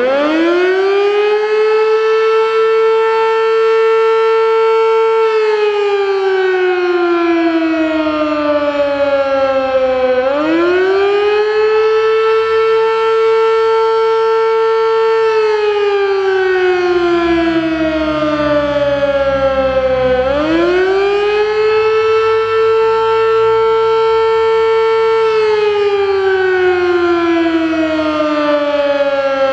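Sterling Model M 8/16-port electromechanical siren sounding the attack signal, a wavering two-note chord an octave apart. It winds up as it starts, holds steady for about four seconds, then slides down in pitch for about five seconds before quickly rising again. This rise, hold and fall repeats roughly every ten seconds, and it is rising once more at the end.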